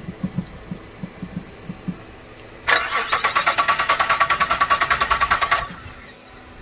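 The 2004 Nissan Quest's 3.5-litre V6 being cranked by its starter for about three seconds, with a rapid, even chugging of roughly eight beats a second. It stops abruptly without the engine catching. A few soft, low knocks come before it.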